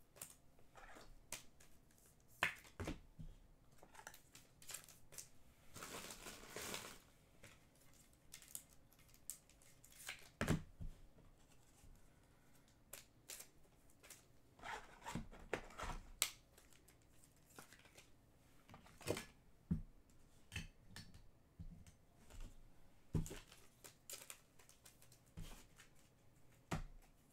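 Faint handling of trading cards and plastic card holders: scattered clicks and taps with a longer rustle about six seconds in.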